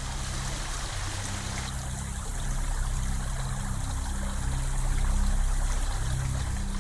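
Stream water running in a steady rush, with background music of low sustained notes underneath, the whole slowly growing louder.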